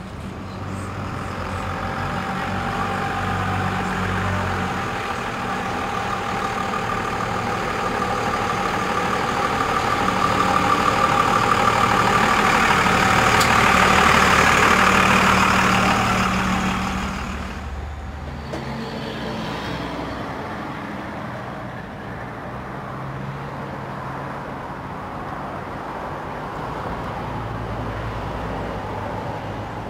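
A motor vehicle running, with engine hum and road noise that swell to a peak about halfway through, then drop away and give way to a quieter steady hum.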